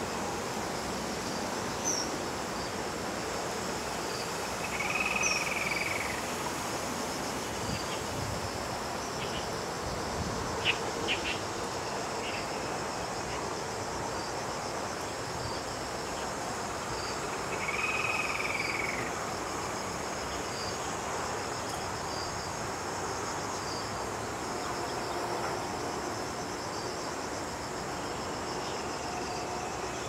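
Steady, high-pitched chorus of cicadas. A louder call about a second long stands out twice, about five seconds in and again near eighteen seconds, and a few sharp clicks come near the middle.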